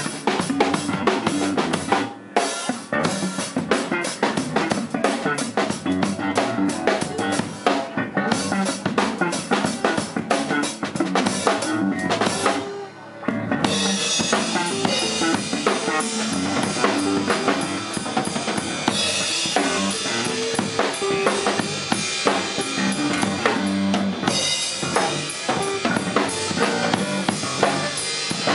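Drum kit played live in a free jam, a busy stream of snare, bass drum and rimshot hits. The playing drops out briefly about halfway, then comes back with a denser cymbal wash.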